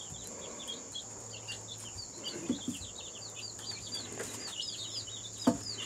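Chicks peeping continuously: a rapid run of short, high, falling peeps from a brood of young chickens.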